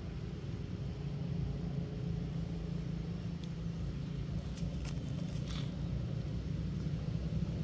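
Steady low rumble, with a few short crinkles of a plastic snack wrapper as a baby long-tailed macaque handles and chews it, about halfway through.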